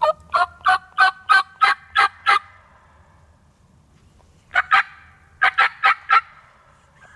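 Turkey yelps: a run of eight evenly spaced notes, then after a pause a pair and four more.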